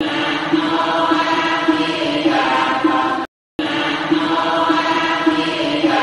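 Buddhist devotional chanting: voices intone a slow, sustained melodic chant. About three seconds in, the sound cuts out to complete silence for about a third of a second, then the chant resumes.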